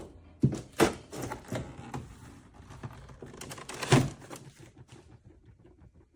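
Sharp plastic clicks and knocks with lighter rattling between: the mini split indoor unit's washable filters and front cover being handled and snapped back into place.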